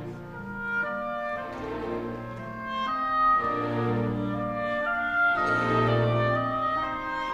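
Classical orchestral music accompanying a ballet solo.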